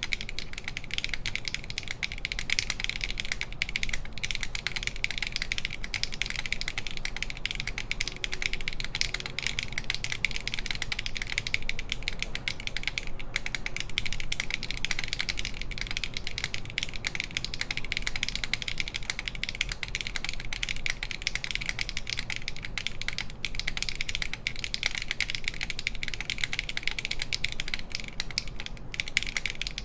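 Fast, continuous typing on a SINGAKBD Kohaku mechanical keyboard with an aluminum full plate, stock HMX Hyacinth V2U linear switches and GMK keycaps: a dense, unbroken stream of keystroke clacks.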